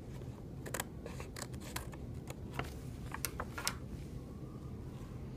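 Scissors snipping through black construction paper, trimming off its overhanging edge: a run of short, crisp cuts that stops about three and a half seconds in.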